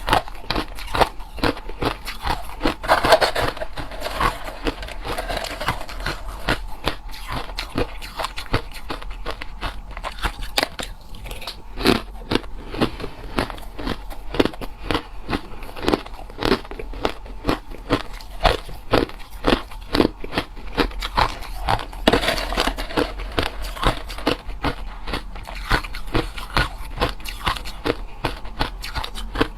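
A person biting and chewing hard and crushed ice close to the microphone: dense, irregular crunching and cracking, with louder bites about three seconds in and again a little past twenty seconds.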